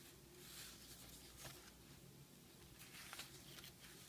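Faint rustling of paper as the pages of a thick handmade journal are handled and turned by hand: a few soft swishes and light taps.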